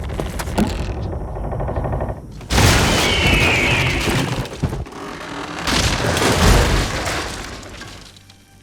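Loud crashing and booming action sound effects in two big surges, with a brief high screech about three seconds in, fading away near the end.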